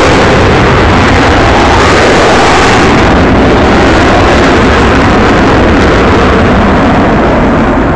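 Avro Vulcan bomber's four Rolls-Royce Olympus turbojets roaring during a display pass, a steady, very loud jet roar that overloads the phone's microphone and eases slightly near the end.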